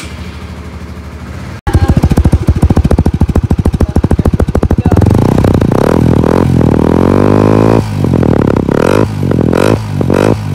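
Honda motorcycle engine catching about a second and a half in, running with rapid, even firing pulses. From about halfway it becomes a fuller, continuous running sound.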